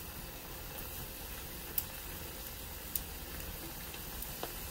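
Chicken and vegetable stir-fry sizzling steadily in a wok over a charcoal fire, with a couple of faint clicks about two and three seconds in.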